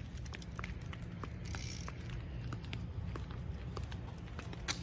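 Low steady wind rumble on a phone microphone while walking outdoors, with scattered light clicks and taps of footsteps, and one sharper click near the end.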